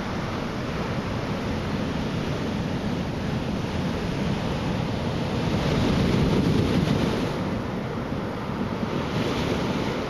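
Ocean waves breaking on the shore in a steady wash, growing louder as a wave breaks about six seconds in and again near the end.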